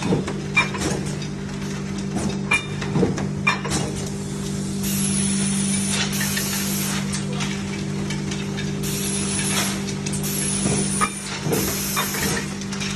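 Hot-forging press machinery running: a steady low machine hum, several hissing blasts of air or spray that tail off in a falling hiss, and sharp metallic knocks.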